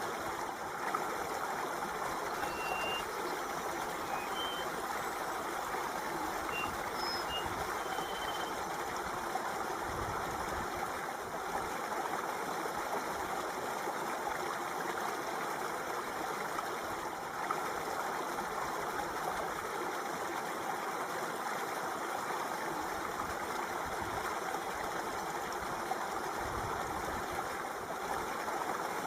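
Steady flowing water, an even rushing with no breaks. A few faint, short high chirps sound in the first several seconds.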